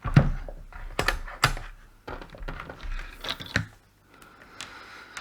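A string of sharp clicks and knocks from handling a mains plug and a test meter: a plug being pushed into a socket and a multimeter with its probe leads being picked up and set down. A faint steady tone comes in near the end.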